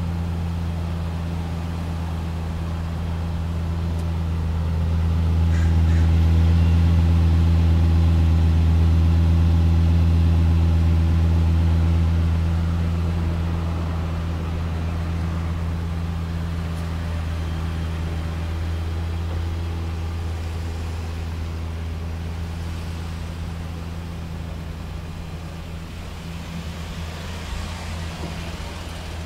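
Lexus LFA Nurburgring Edition's 4.8-litre V10 idling at the exhaust tips: a steady low hum that holds its pitch. It swells for several seconds about a quarter of the way in, then slowly fades.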